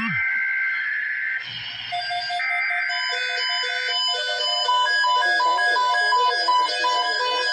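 Emergency-alert broadcast audio: two buzzy data-burst tones, each about a second long, then from about three seconds in a tinkling electronic melody of short, bright notes.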